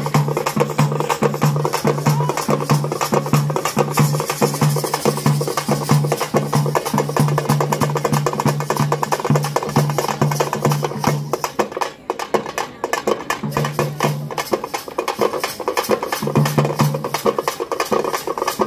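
Fast traditional percussion music: rapid, driving drum strokes over a steady low droning note. The drone and the level drop out briefly about two-thirds of the way through, then the drone returns in short stretches while the drumming continues.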